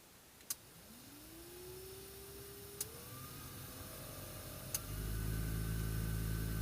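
VAZ 2109 heater blower fan switched on with a click, its motor spinning up in a rising whine. It clicks up a speed partway through with a step up in pitch, and at a third click near the end it goes over to a loud steady rush of air. The owner hears this as an unwanted rustling from the heater.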